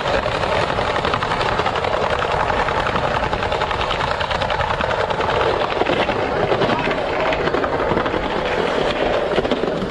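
Skateboard wheels rolling fast over rough pavement: a steady, loud rough rumble with a fast fluttering texture.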